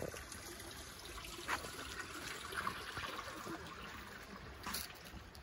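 Water trickling steadily, as in a roadside drainage channel, with a few light taps scattered through it.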